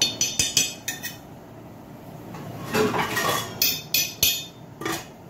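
Metal spoon clinking and scraping against an aluminium pot as cooked basmati rice is stirred: a quick run of clinks at the start, then a few more scattered knocks.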